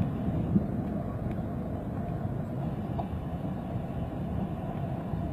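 Steady low rumble of a twin-engine jet airliner's engines climbing out after takeoff.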